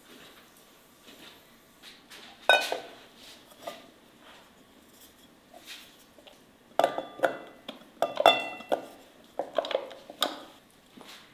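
Ceramic and enamel kitchenware clinking and knocking as a wooden spoon works cubed butter out of a ceramic pot into an enamel bowl. The clinks are scattered, some with a brief ring; the loudest comes about two and a half seconds in, and a busier run follows from about seven to ten seconds.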